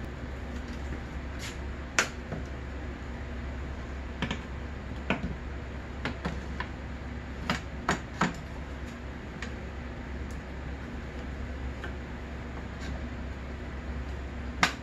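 Scattered light clicks and knocks as a snowmobile's rubber drive belt is worked off the clutch sheaves and handled, over a steady low hum. The sharpest knocks come about two seconds in and just before the end.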